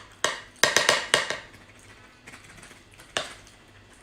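Sharp clicks and clatters of shells and utensils against dishes during a meal of spicy ark clams: a quick cluster of taps in the first second and a half, and one more a little after three seconds in.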